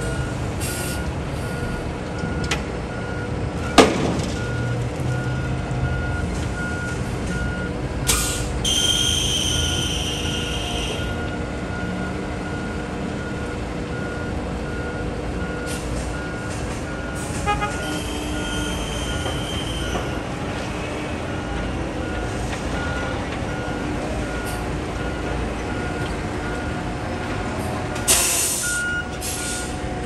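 Concrete mixer truck's diesel engine running steadily, with a backup alarm beeping at an even pace. About nine seconds in a high air-brake squeal lasts a couple of seconds, and near the end comes a short burst of air hiss.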